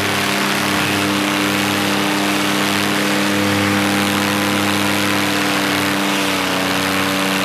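Paramotor engine and propeller running steadily at high power during the climb just after takeoff, with a rushing hiss over it. The engine's pitch dips slightly about six and a half seconds in.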